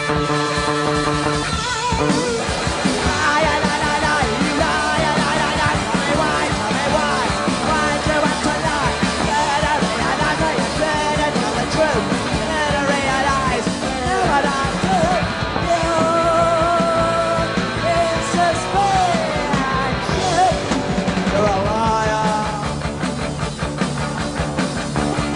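Punk rock band playing live: electric guitar, bass and drums, with a shouted lead vocal that drops out a few seconds before the end.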